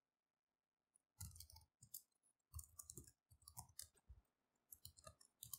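Faint, irregular keystrokes on a computer keyboard as a shell command is typed, in short bursts of clicks starting about a second in.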